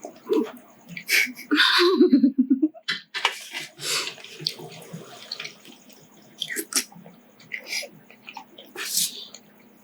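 Wet slurping and sucking as a starchy leftover noodle broth with the last noodles is eaten, in irregular short bursts, with a brief low hum of voice about two seconds in.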